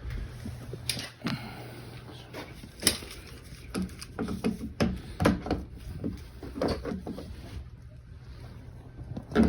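Irregular clicks and knocks of pipe fittings and tools being handled while plumbing for a sewage pump is put together, with a steady low hum underneath.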